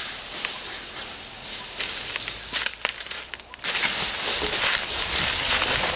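Crackling and rustling of dry leaf litter over a steady outdoor hiss. About three and a half seconds in, the sound cuts abruptly to a louder, denser hiss.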